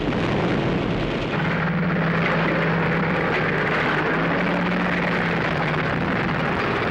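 Armoured vehicle engine running with a steady, heavy rumble and a low drone.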